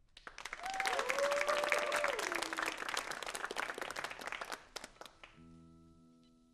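Short applause with one long cheering whoop over the clapping, dying away about five seconds in. A single electric guitar chord then rings on faintly through the amplifier.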